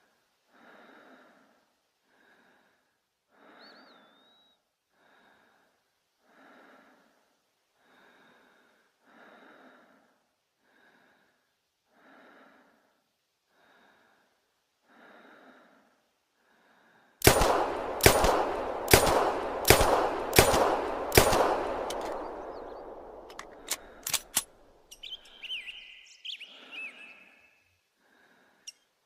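Springfield Armory Omega pistol firing a rapid string of about eight shots, roughly two a second, each ringing off, followed by a few scattered smaller clicks. Before the shots, only faint soft puffs repeat about every second and a half.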